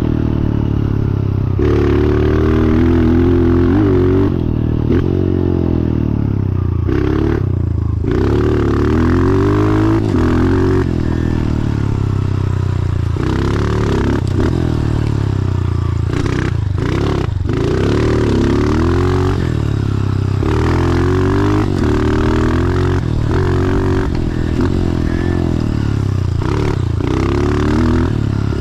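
2014 Honda CRF125F dirt bike's single-cylinder four-stroke engine through a full FMF exhaust, revving hard under riding load. Its pitch climbs and drops back again and again as the throttle opens and closes through the gears, with a few brief dips.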